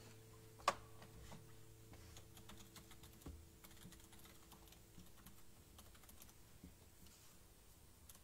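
Faint typing and clicking on a computer keyboard, with one sharper click under a second in.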